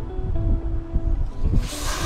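Background music, and about one and a half seconds in, a hissing spray burst of aerosol parts cleaner through its straw nozzle, degreasing an engine rocker cover.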